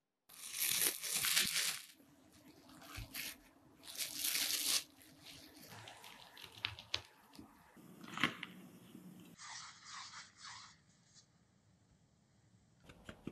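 Plastic cling film rustling and crinkling over a tray of set chocolate. Then a knife cuts the chocolate into small cubes with a few light clicks and knocks, and soft rubbing follows as gloved hands shape the pieces into truffle balls.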